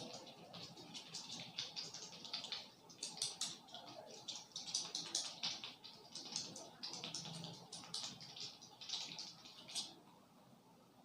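Fingers rubbing and scratching through hair on the scalp during a head massage: a quick, irregular run of faint crackling rustles that stops near the end.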